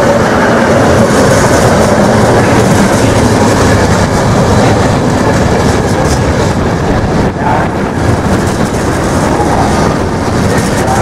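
Locomotive-hauled passenger train running past at close range, its coaches' wheels on the rails making a loud, steady rush of rail noise.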